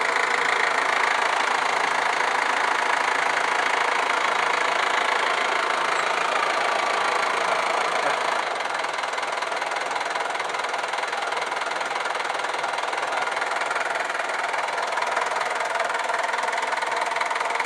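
Mazda SUV engine idling steadily, heard close up in the open engine bay. It gets a little quieter about eight seconds in.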